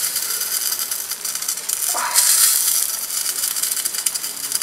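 Salmon sizzling in a hot camp smoker, a steady crackly hiss. The smoker is running hot enough to grill the fish rather than just smoke it.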